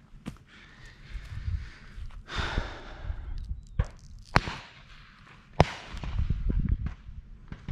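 Rustling and breathy noise close to the microphone, with a few scattered sharp cracks, the loudest about five and a half seconds in, and a low wind rumble near the end.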